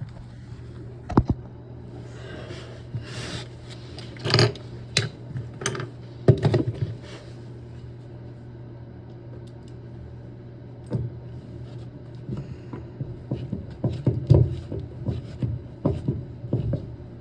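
Irregular small metallic clicks, taps and scrapes of hand work on a toilet supply stop valve as the screw is fitted into its new handle, over a steady low hum.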